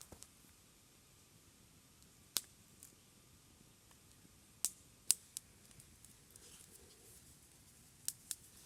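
A few sharp, scattered clicks and ticks over faint background hiss: one about two seconds in, a cluster near the middle, and two close together near the end.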